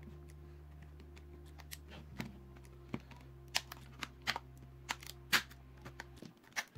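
A small flathead screwdriver prying apart the plastic casing of a laptop battery pack: about ten sharp, irregular plastic clicks and snaps as the seam is levered open. The clicks start about two seconds in, and the loudest comes near the end, over soft background music.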